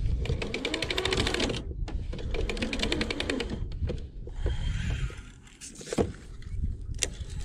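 Scotty downrigger paying out as its weight is lowered about 12 feet, giving two runs of rapid clicking, each about a second and a half long, with a short break between. A couple of sharp knocks from handling the downrigger come near the end.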